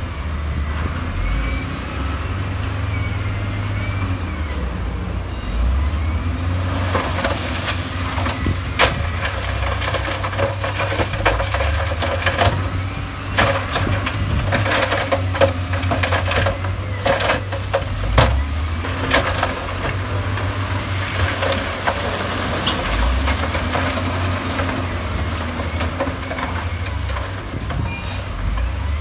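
Heavy diesel construction machinery running under load, a steady low engine rumble, with a long run of sharp knocks and clatter through the middle stretch.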